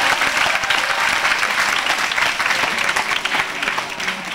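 Audience applauding: dense clapping that slowly thins and fades toward the end.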